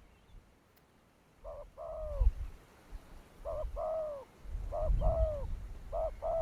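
A dove cooing, repeating a two-part call about four times: a short note, then a longer, falling coo. A low rumble sits underneath.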